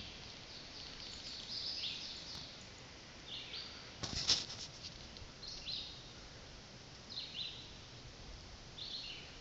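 A bird calling over and over, a short high call that drops in pitch, repeated about every one and a half to two seconds. About four seconds in, there is a louder, brief rattling burst.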